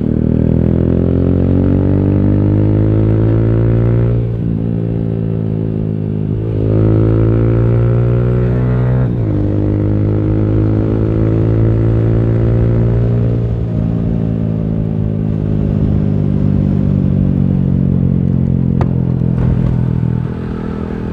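Yamaha YBR 125G single-cylinder four-stroke motorcycle engine, through a replacement exhaust, pulling up through the gears while riding: the note climbs and drops at each upshift three times in the first nine seconds or so. It then runs at a fairly steady speed and eases off near the end.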